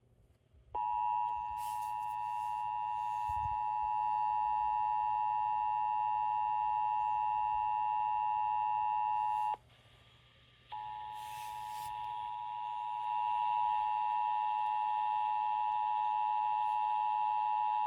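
Emergency Alert System attention signal on FM radio: a steady two-tone alarm just under 1 kHz that sounds for about nine seconds, breaks off for about a second, then comes back. It announces that an emergency message follows, here a flash flood warning.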